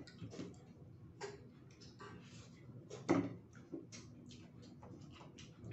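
Quiet eating at a table: irregular small clicks and taps of metal cutlery on plates, with one sharper click about three seconds in.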